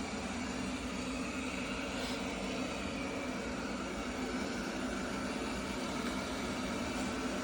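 Roborock S8 Pro Ultra robot vacuum running, a steady whirring hum of its suction fan and brushes.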